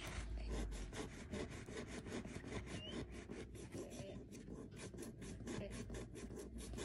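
Fingernails scratching and picking at the edge of a plastic blister on a toy's printed card packaging, working to peel it open: a faint, quick run of small scratches, several a second.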